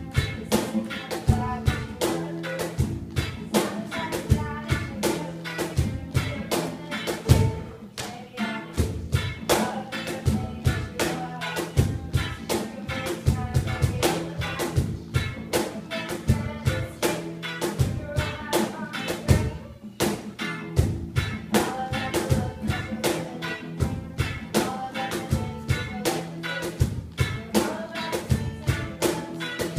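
Small live band playing: acoustic and electric guitars strumming over a steady, evenly spaced cajón beat.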